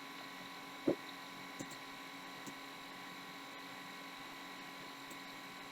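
Faint steady electrical mains hum from the running computer setup, with one sharp click about a second in and a couple of fainter ticks after it.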